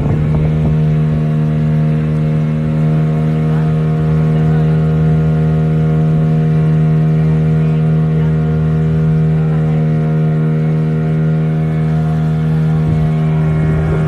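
Small passenger boat's engine running steadily at cruising speed, a constant drone as the boat moves fast through the water.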